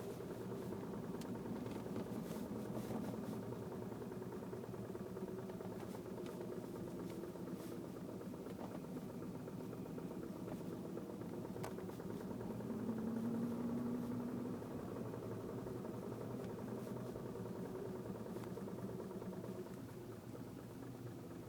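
BMW E90's engine running at low speed while the car reverses, with occasional sharp clicks: the reversing click that persists after a dealer repair. A brief louder hum swells about thirteen seconds in.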